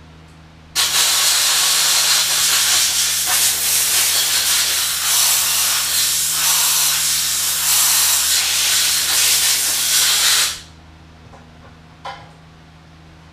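Compressed-air blow gun blowing off a muzzle brake between coats of cold bluing: a loud, steady hiss that starts abruptly about a second in and cuts off sharply about ten seconds later. A faint click follows.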